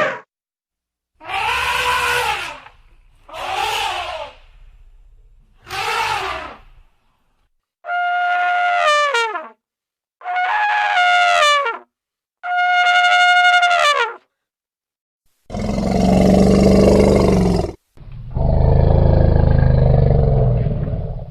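Elephants calling in a string of separate clips. First come three short trumpeting squeals, then three longer trumpet blasts held at a steady pitch that fall away at the end, then two long, deep, rough calls.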